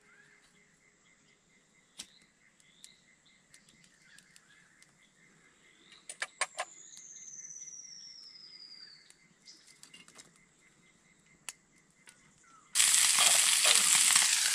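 Faint outdoor background with a few sharp clicks and one long falling whistle about halfway through. Near the end, loud sizzling starts suddenly: pork steak hitting a hot pan over a small twig-fired stove and frying.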